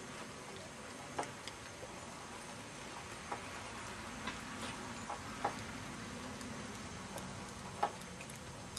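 Faint, unevenly spaced clicks and knocks from a horse being ridden at trot and canter on a sand arena: hooves and tack, over a steady low hiss.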